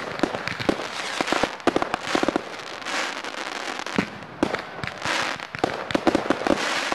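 Fireworks going off: a rapid, irregular crackle of sharp cracks and pops over a steady hiss, thickening into denser volleys twice.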